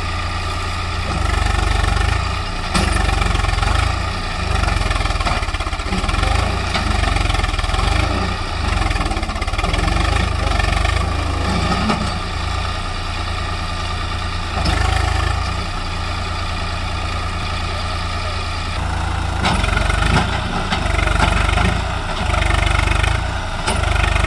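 Tractor diesel engine running continuously, its revs swelling up and dropping back every few seconds as if pulling hard.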